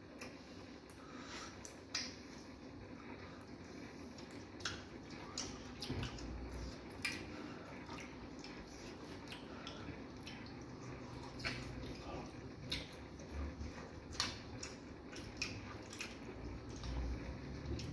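Wet eating sounds of fufu pinched and dipped by hand into banga soup and chewed: squishes and mouth smacks. They come as scattered short clicks.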